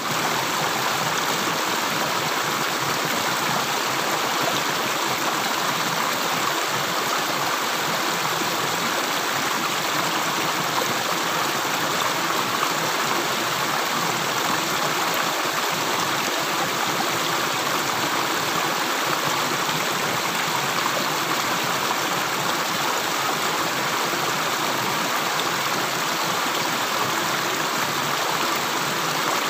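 Flowing water making a steady, even rush, like a stream, with no separate drips standing out.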